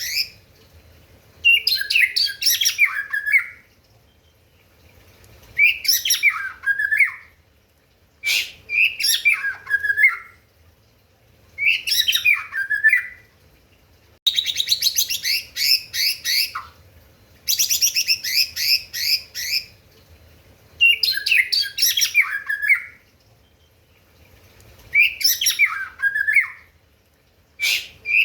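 White-rumped shama (murai batu) singing loud separate phrases, one every few seconds. Some phrases are fast runs of repeated notes, and others are warbles that fall in pitch.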